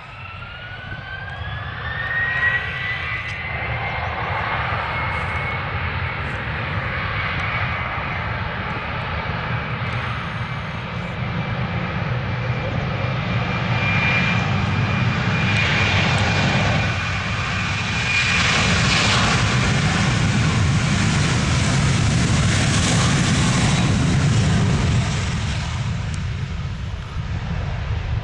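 Jet airliner's engines spooling up to takeoff power, the whine rising in pitch over the first few seconds and then holding steady over a low rumble. The sound grows louder as the jet rolls and passes, loudest past the middle, and fades near the end.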